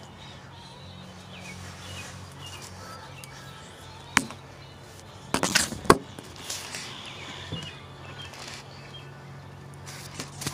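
A sharp knock about four seconds in, then a louder quick cluster of knocks and clatter about a second later, from the phone being bumped and handled against the wooden railing. A steady low hum runs underneath.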